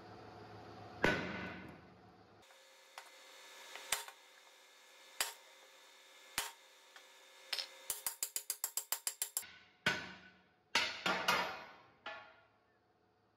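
Sledgehammer blows on a steel bar driving the wheel centre out of a steel tractor wheel rim, each strike leaving the rim ringing. A strong blow about a second in, then lighter sharp strikes about a second apart, a quick run of about a dozen rapid strikes, and several heavy blows near the end as the centre drops free.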